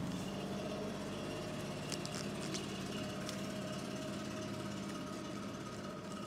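Steady hum of a motor running in the background, with a few faint clicks.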